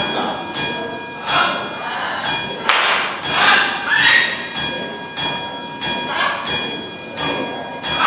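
Small bell on a perch stand rung by a blue-and-gold macaw working its lever, about two strikes a second, each strike leaving a ringing tone.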